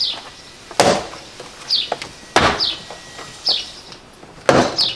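Plastic retaining clips of a BMW E90 door trim panel snapping loose, three sharp pops a second or two apart as the panel is pried off the door. A bird repeats a short falling chirp about every two seconds.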